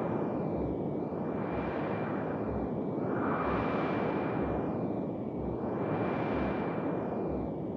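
Electronic space-like soundscape: a hissing noise that sweeps up and down in slow waves about every two and a half seconds, with a thin steady high whistle running through it.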